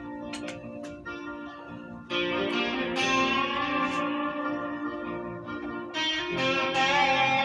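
Guitar playing slow, ringing chords, a new chord struck about two seconds in and again near six seconds, each louder than the last.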